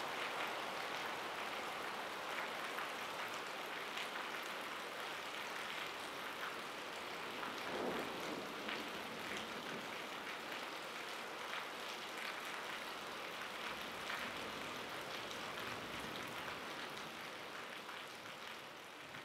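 Steady rain falling, with scattered drops ticking, a brief swell about eight seconds in, then fading out near the end.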